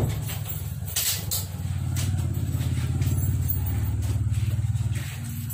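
An engine running steadily with a low, evenly pulsing rumble, with a sharp click at the start and another about a second in.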